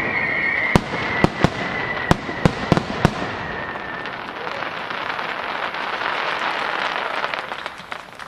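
Starmine fireworks barrage: a quick run of about seven sharp bangs from bursting shells in the first three seconds, then a dense crackling of glittering stars that fades away near the end.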